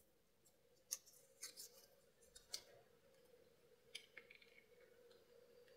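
Near silence with a handful of faint, short clicks and ticks from handling a small glue tube and a flexible plastic rim ring while glue is dabbed on. A faint steady hum sits underneath.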